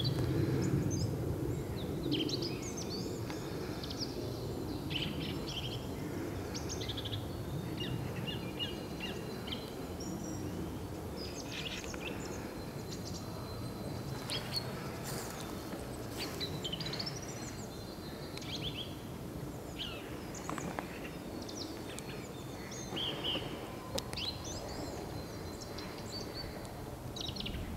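A songbird singing short, varied phrases with brief pauses between them, over a steady low background rumble. The singer is one the recordist takes for a song thrush but is not sure of.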